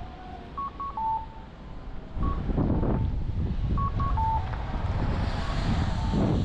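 A repeating electronic beep signal: a few short high beeps and then a lower, longer tone, coming round about every three seconds. From about two seconds in, a loud low rumble sets in underneath, the kind a vehicle makes going by, and carries on.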